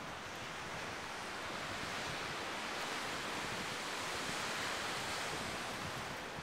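Sea surf washing on the shore: an even rushing noise that swells through the middle and eases off near the end.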